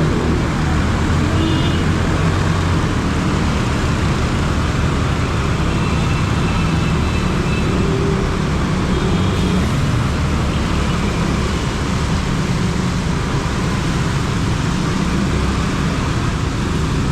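Steady road traffic noise: vehicle engines running and passing in a continuous rumble.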